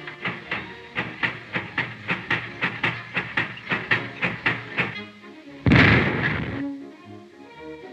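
Ford Model T's engine being hand-cranked, a regular clacking about three times a second over music. About six seconds in comes a sudden loud burst with a rush of escaping air that fades over a second: the front tyre blowing out.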